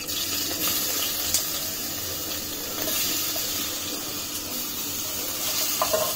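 Freshly pressed garlic sizzling in hot oil in a pan: a steady hiss that starts as the garlic drops in. A wooden spatula scrapes briefly near the end.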